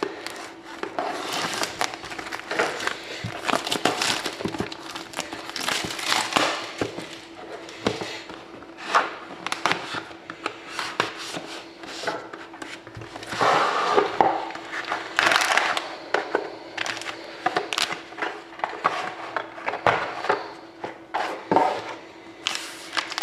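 Plastic wrapping crinkling and tearing as a sealed trading-card box is unwrapped and opened, with irregular rustles and sharp clicks.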